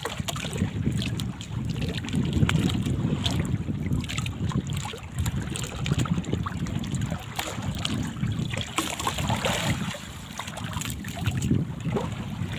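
Wind buffeting the microphone in gusts over the sound of sea water splashing, with scattered small knocks and clicks.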